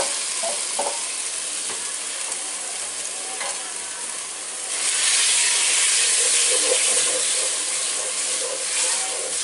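Thin slices of marinated beef sizzling in very hot oil with chopped ginger and garlic, stirred with a wooden spatula, after a brief knock as the meat goes in. The sizzle grows louder and brighter about five seconds in.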